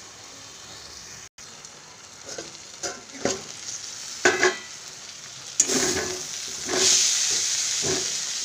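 Chopped banana flower frying in a metal kadai, stirred and scraped with a flat metal spatula: a few scrapes and clinks, then a steady sizzle that grows louder about five and a half seconds in, with more spatula strokes over it.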